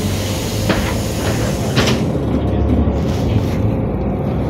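Cabin noise of a NefAZ-5299 city bus under way: steady engine and road rumble, with a hiss that fades out about two seconds in and a few short rattles or knocks around the one- and two-second marks.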